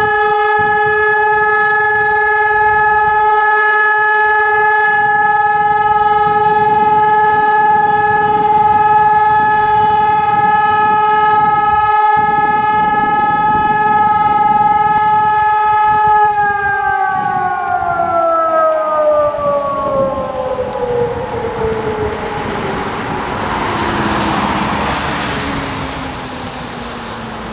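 Hörmann ECN 1200 electronic civil-defence sirens holding one steady tone, then winding down in pitch from about sixteen seconds in, as a motor siren runs down. The long steady tone is the all-clear signal of the siren test. A rushing noise swells near the end.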